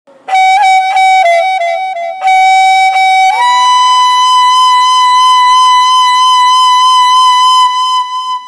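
Instrumental background music: a single melody line plays a few short notes, then holds one long, higher note from about three seconds in until just before the end.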